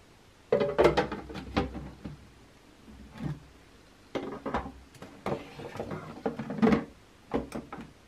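Plastic water tank and lid of a DeLonghi ECAM coffee machine being handled: the lid set on with a clatter, then the tank pulled out and slid back into its bay, giving several bursts of hard plastic knocks, clicks and scrapes.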